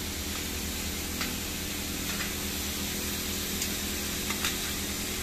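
Freshly added button mushrooms frying in oil and masala in an aluminium kadai: a steady soft sizzle with a few faint crackles.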